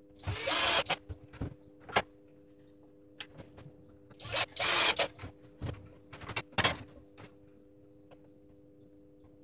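Wooden parts being handled and fitted together: two short, loud rasping bursts about a second in and about halfway through, with scattered light clicks and knocks of wood.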